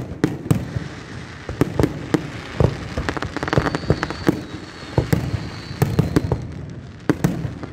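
Fireworks going off in an irregular run of sharp bangs, several a second at times, with a faint high whistle held for a couple of seconds in the middle.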